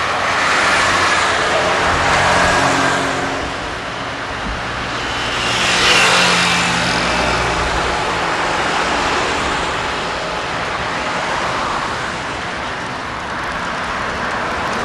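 Street traffic: motor vehicles passing by, in two swells of engine and tyre noise, the louder one about six seconds in.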